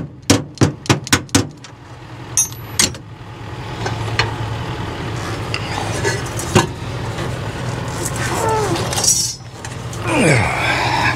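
Metal clinking and clanking as the old turbocharger is worked free of the John Deere 4.5 L diesel's exhaust manifold and lifted out. It opens with a quick run of about six sharp clicks, then a couple of ringing clinks and scattered knocks.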